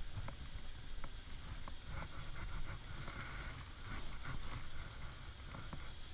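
Wet hands rubbing lather into a standard poodle puppy's soaked face and head fur: soft rubbing noise, busiest in the middle of the stretch, with a few small clicks near the start over a low rumble.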